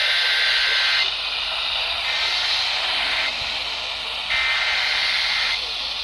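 NOAA weather radio giving off steady static hiss between parts of an alert broadcast. A faint high tone in the hiss comes and goes about once a second.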